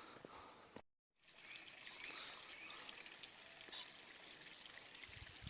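Faint countryside ambience with distant birds chirping, broken by a moment of dead silence about a second in.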